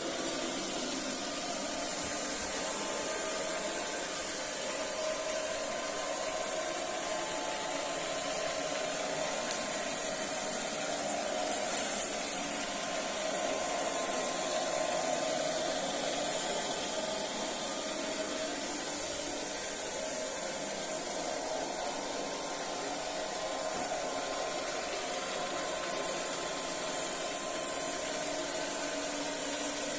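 Vacuum cleaner switched on and running steadily, a continuous motor whine and rushing air. It briefly gets louder and hissier about twelve seconds in.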